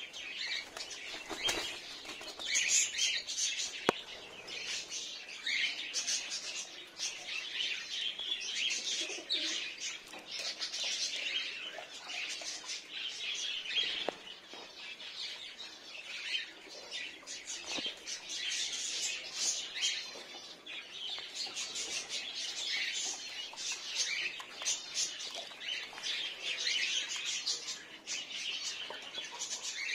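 A steady chatter of many small caged birds chirping, with wing flapping and a few sharp knocks among the cages.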